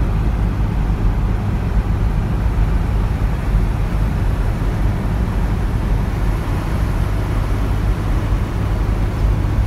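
Steady low rumble of wind, tyre and engine noise inside the cabin of a 1995 Toyota MR2 driving with its T-tops open.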